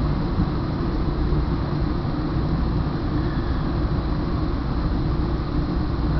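Northstar commuter train in motion, heard from inside a passenger car: a steady, even rumble with most of its weight in the low end.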